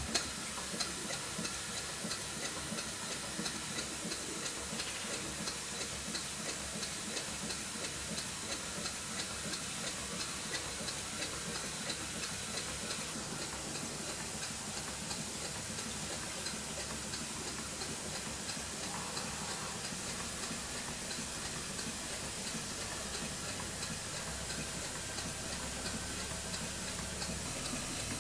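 Stuart Twin Victoria model twin-cylinder steam engine running on compressed air: a steady hiss with fast, regular exhaust beats and light mechanical ticking from the valve gear. The engine is part-way through a rebuild, and its builder says the valve timing is not yet quite right.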